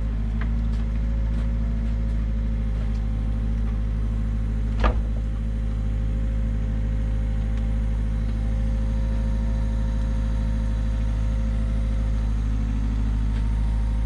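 Case mini excavator's diesel engine running steadily, with one short sharp knock about five seconds in.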